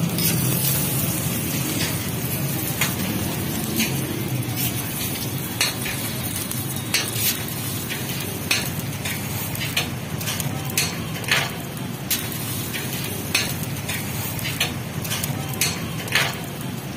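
Egg roll frying on a flat griddle with a steady sizzle, while a metal spatula scrapes and taps against the griddle, making sharp clicks about once a second.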